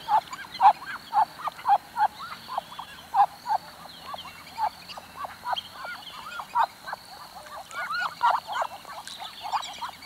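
A flock of waterfowl calling: a steady run of short, arched honking calls, about two a second, with several birds overlapping.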